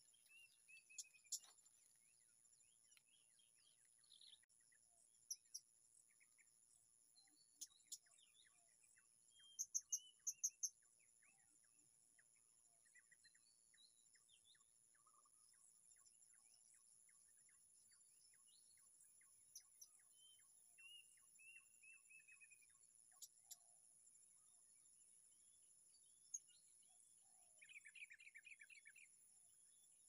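Faint outdoor ambience: a steady high insect drone with scattered short bird chirps and calls. About ten seconds in comes a quick run of four sharp chirps, and near the end a short buzzy burst.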